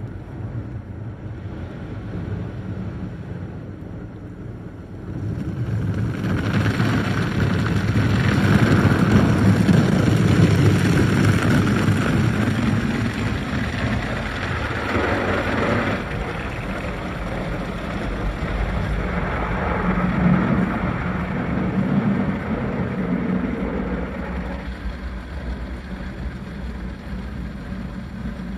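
Automatic car wash heard from inside the car: water spray and rotating cloth brushes working over the windshield and body, a steady rushing noise that grows louder about six seconds in.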